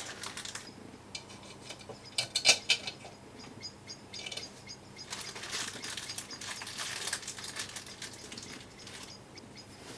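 Small metal screws and parts clinking and rattling as they are rummaged through, in scattered clicks with a louder cluster about two and a half seconds in.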